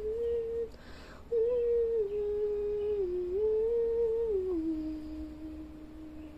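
A person humming a slow tune, holding each note for about a second and stepping up and down between them, with a short pause about a second in.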